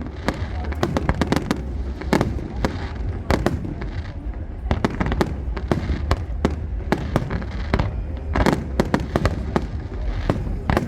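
Fireworks display: a rapid, dense run of bangs and crackling bursts, several a second, over a steady low rumble.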